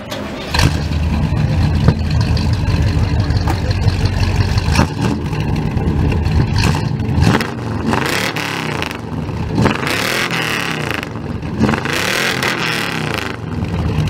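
Oldsmobile's engine running through its dual exhaust pipes, idling and then revved several times in the second half.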